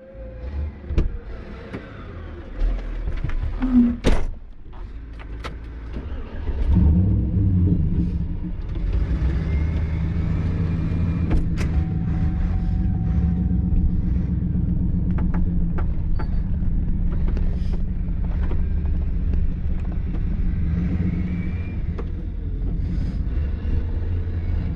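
A few knocks and clunks, then a vehicle engine starts running steadily about seven seconds in and keeps going.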